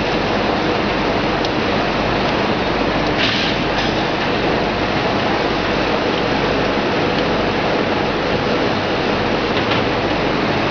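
Small screw oil press (expeller) running steadily while pressing soybeans, a continuous loud mechanical noise with a faint steady hum. A few light clicks, the most distinct about three seconds in.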